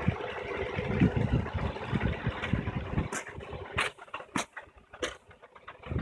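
2008 Infiniti G35x V6 idling, heard from underneath the car, with an irregular low rumble for the first few seconds. After that it goes quieter, with several sharp clicks. The owner reports this as an odd underbody noise that comes only at idle and goes away once the car moves.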